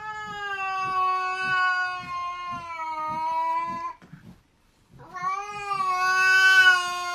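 A cat yowling at another cat in two long, drawn-out calls of steady pitch, each sagging slightly in the middle. The first lasts about four seconds; after a short pause the second begins about five seconds in.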